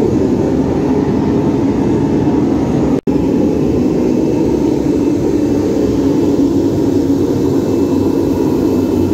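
Electric centrifugal blower feeding air to a furnace, running with a loud, steady roar, broken by a brief dropout about three seconds in.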